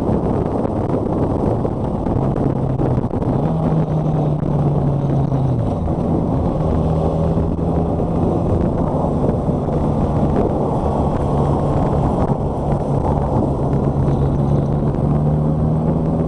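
Honda motorcycle riding at road speed: a steady engine hum under loud wind and road rush, the engine note rising about three and a half seconds in.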